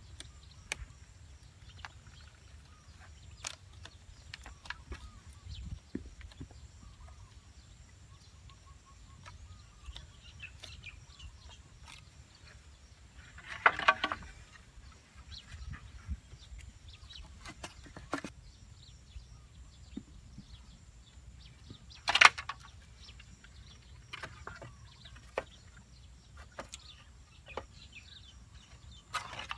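Outdoor ambience with a steady low rumble and scattered light knocks and clicks of handling wooden poles. A short bird call sounds about halfway, and a single sharp knock, the loudest sound, comes about two-thirds of the way through.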